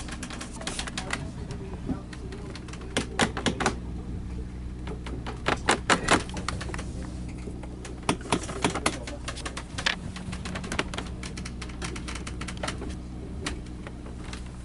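Handwritten paper sign crinkling and the phone being handled at close range: clusters of sharp crackles and taps, loudest about six seconds in, over a steady low hum.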